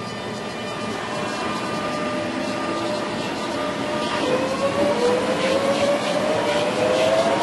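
Eurostar Class 373 electric train gathering speed over a steady rumble, with a motor whine that rises steadily in pitch from about halfway through.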